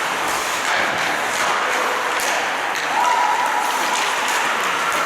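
Ice hockey play: a steady scraping haze from skates on the ice, broken by several sharp knocks of sticks, puck and boards.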